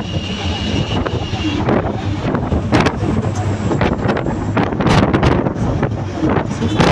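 Mitsubishi Canter light truck's diesel engine running steadily at highway speed, heard inside the cab with road and wind noise. From about a second and a half in, irregular wind buffets or rattles come through.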